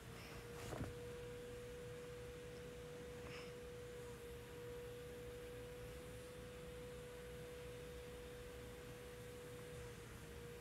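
A faint, steady tone held at one pitch, with a brief click about a second in.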